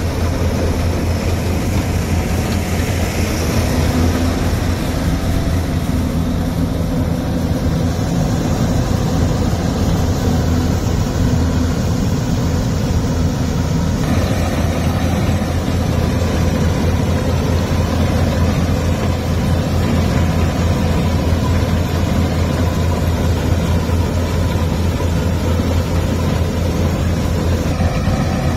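Farm diesel engine running steadily at a constant speed, with a strong low hum.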